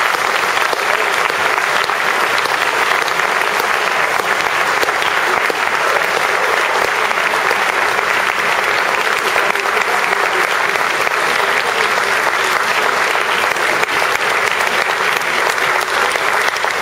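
Audience applauding steadily, with one person clapping close to the microphone.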